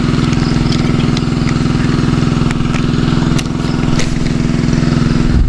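A small engine running steadily at a constant speed, its note easing slightly about three and a half seconds in, with scattered light clicks over it.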